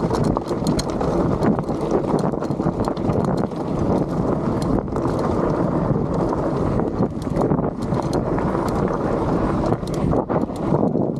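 Mountain bike riding down a rough, rocky trail: a constant rush of wind on the microphone, with irregular clicks and clatter from the tyres and bike going over rocks.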